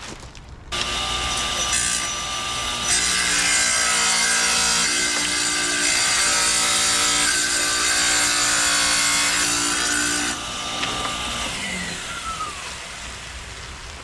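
Wet tile saw switched on about a second in, running steadily and cutting through a sheet of stone mosaic tile. It is switched off a few seconds before the end, and the motor spins down with a falling whine.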